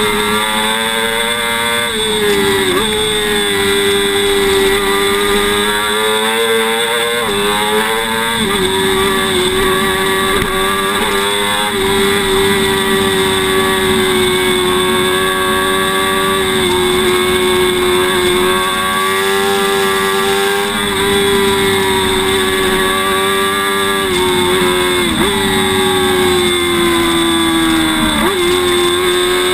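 Sport motorcycle engine running hard at high revs on a race track, its pitch holding high and dropping sharply several times at gear changes, with wind rushing past at speed.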